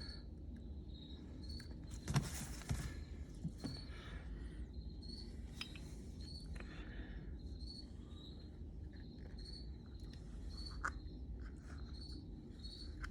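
A cricket chirping steadily, about one short high chirp a second. Over it come soft rustles and small knocks of hand work on the brake caliper and its rubber boots, loudest about two seconds in.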